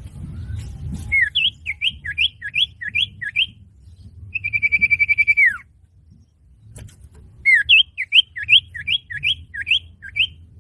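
Common iora (cipoh) call played as a bird-lure recording: a run of about seven quick, rising-then-falling chirped notes, then a single long, steady trilled whistle that slides down sharply at its end, then another fast run of about eight notes. A low hum sits underneath.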